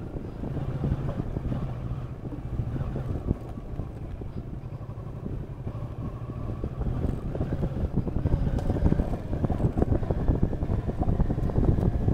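Motorcycle engine running at low speed over a rough dirt track, with jolts from the bumpy ground and wind on the bike-mounted camera's microphone. It gets louder over the last few seconds.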